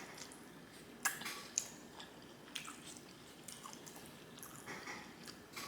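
A person chewing a mouthful of spaghetti with meat sauce: soft wet mouth smacks and clicks, with two sharper clicks about a second and a second and a half in.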